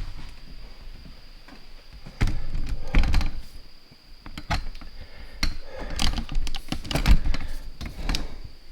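Knocks, thunks and clatter of hands handling equipment, a string of separate sharp knocks with a heavier cluster about two seconds in and another in the latter half.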